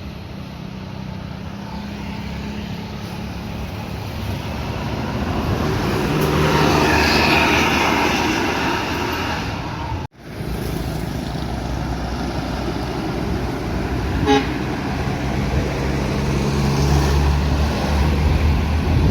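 Aneka Jaya coach buses' diesel engines pulling up a steep climb, one passing close and loudest about seven seconds in. The sound cuts off abruptly about ten seconds in, then another bus engine climbs and a short horn toot sounds about fourteen seconds in.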